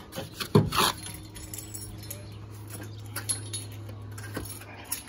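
A trowel scraping and scooping wet mortar and concrete rubble, loudest about half a second in, followed by a few light metallic clinks of hammock hook hardware, over a steady low hum.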